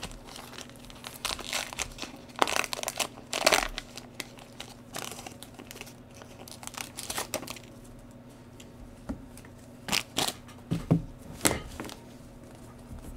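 Foil wrapper of a trading-card pack crinkling and tearing as the pack is opened, followed by a few sharp taps and clicks near the end as the cards are handled.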